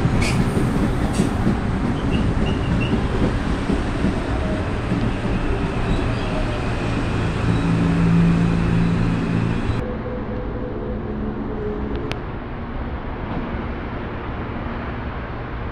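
Electric commuter train (CPTM multiple unit) rolling past on the track, with a steady rumble of wheels on rail, a few clicks near the start, and a low motor hum that strengthens before an abrupt drop about ten seconds in. A quieter steady hum follows, as of a train standing at the platform.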